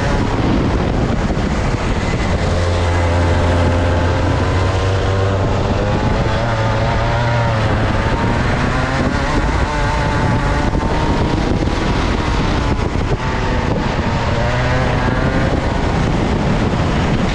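Two-stroke kart engine heard from onboard at full running, its pitch rising and falling repeatedly as the kart speeds up on the straights and slows for the corners.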